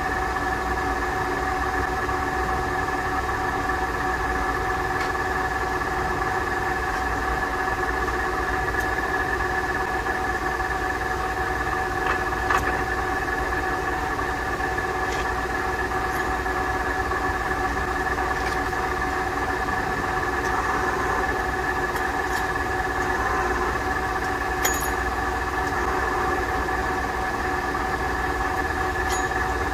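Vanguard CA6250C engine lathe running steadily: a low hum with a steady gear whine from its geared headstock. A few sharp clicks come partway through.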